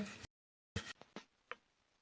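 Near silence in a small room: the sound drops out completely for a moment, then a few faint, short clicks come about a second in.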